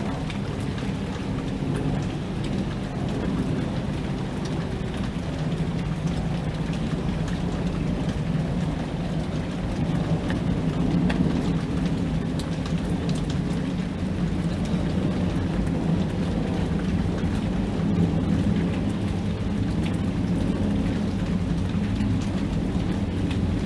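Steady rain with individual drops ticking, under a low rolling rumble of thunder that swells from about five seconds in and keeps going.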